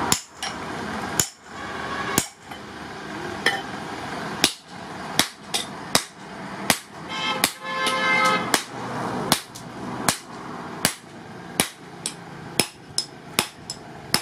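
Hand-hammer blows on a red-hot axe head being shaped on a steel drift through its eye: a run of sharp metallic strikes, a second or so apart at first, then about two a second. Metal rings briefly about halfway through.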